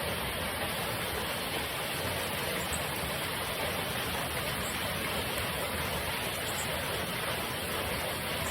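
Steady rain falling, an even rushing hiss with no breaks.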